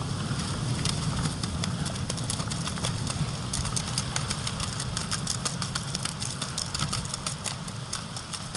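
Surf breaking and washing over a pebble beach: a steady low rumble, with a quick run of sharp clicks and rattles through the middle.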